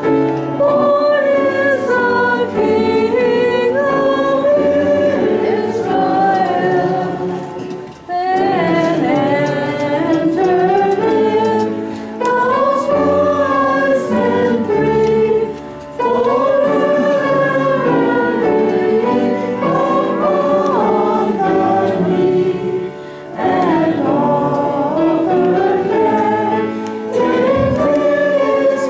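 Congregation singing a hymn together, phrase by phrase, with brief breaths between lines.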